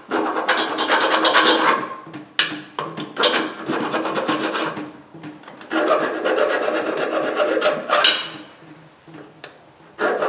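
Rapid rasping strokes of a tool scraped against the enamelled winding wire of a 2 hp electric motor, baring the metal to test whether the windings are copper or aluminum. It comes in four bouts and stops about eight seconds in.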